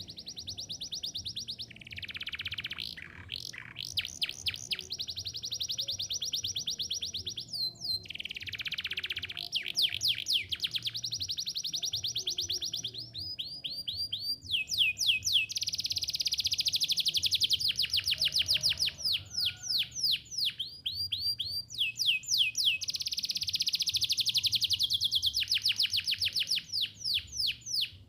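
Domestic canary singing a long rolling song: phrase after phrase of fast repeated notes at changing speeds, broken by sweeping notes, with brief pauses between phrases.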